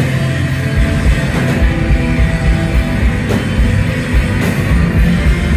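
Instrumental post-rock band playing live: loud, dense electric guitars over drums, heard from the audience in the hall.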